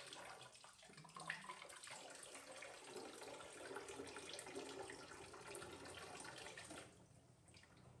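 Faint thin stream of tap water running into a stainless-steel kitchen sink, splashing over a baby monkey's mouth and hand as it drinks from the flow; the sound drops quieter about seven seconds in.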